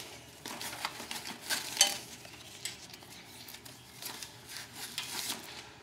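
Straps being unfastened from a paramotor's aluminium frame: scattered clicks, scrapes and rustles of strap and buckle against the tubing.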